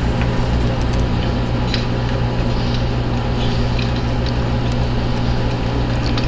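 Heavy truck's diesel engine idling steadily: an even, unchanging drone with a low hum, with a few faint ticks.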